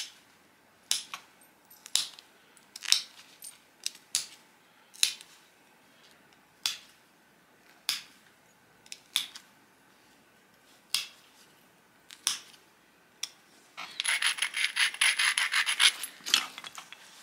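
Pressure flaking a stone biface disc: about a dozen sharp clicks, one every second or so, as small flakes snap off the edge under a hand-held pressure flaker. Near the end, about two seconds of rapid scratchy rasping as the edge is ground with a stone abrader to prepare it for the next flakes.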